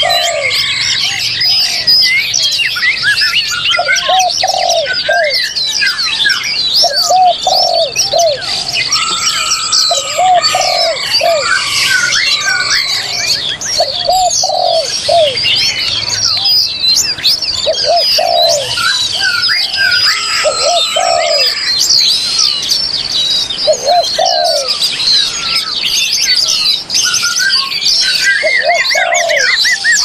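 A dense chorus of many songbirds singing and chirping at once, with a dove's low coo repeated every second or two.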